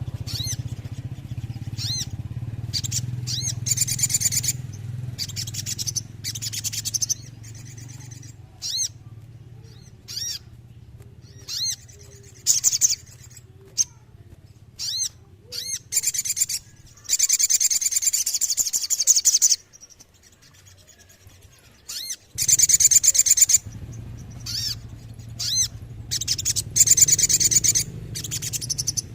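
Little spiderhunter (sogok ontong) singing: high-pitched rapid trills and short sharp notes in repeated bursts, some brief and some about two seconds long. A low steady hum runs underneath and drops out for a couple of seconds about two-thirds of the way through.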